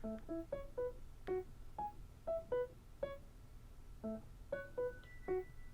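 Background music: a light melody of single struck keyboard notes, a few a second.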